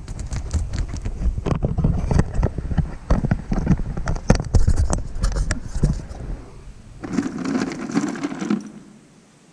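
Metal bolts clicking and rattling as they are handled, with knocks and a low rumble from the camera being moved and set down. A denser rattling burst comes near the end, then the sound drops away.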